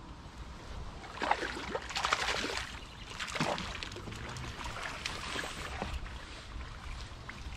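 Water splashing as a hooked fish thrashes at the surface while it is played close to the bank: a run of splashes starting about a second in, then smaller ones.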